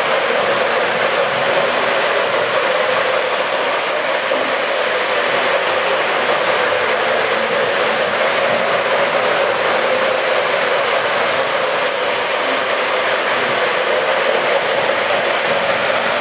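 Electric model train running along its track: a steady mechanical whir with a constant hum from its motor and wheels on the rails.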